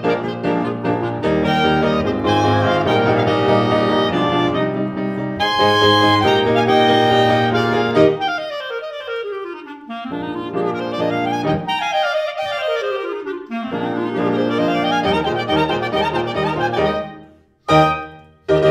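Two clarinets with piano playing the closing bars of a fast movement, with quick rising and falling runs. Near the end the music breaks off for a short, loud chord, a brief pause, then another chord.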